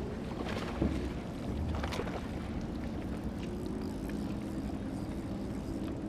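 A boat motor running steadily at an even pitch, with a sharp knock about a second in and a short noisy rush about two seconds in.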